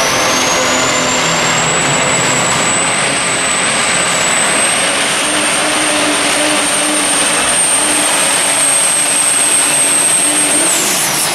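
Chevrolet super stock diesel pulling truck running flat out while dragging a pulling sled. A high turbocharger whistle climbs in pitch over the first two seconds, holds steady, then drops away near the end.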